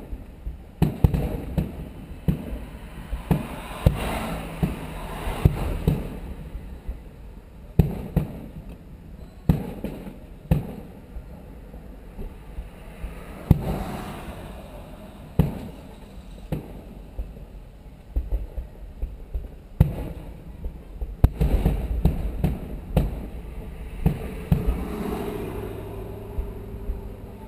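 Aerial fireworks shells bursting: about two dozen sharp booms at irregular intervals, a second or two apart, with a quicker run of bursts about three quarters of the way through. Several booms trail off in a rumbling echo.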